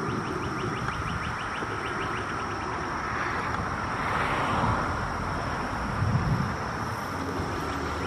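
Periodical cicada chorus: a steady high drone, with a nearer call swelling and fading a few seconds in, over a rapid regular ticking. A low rumble runs underneath and rises briefly near the end.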